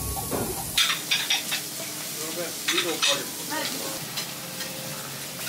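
Meat sizzling on a cast-iron tabletop grill, a steady hiss, with several sharp clicks of metal tongs and tableware from about a second in and faint chatter behind.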